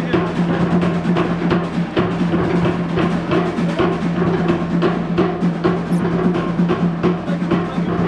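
Fast drumming music: quick, even drum beats over a steady low held note.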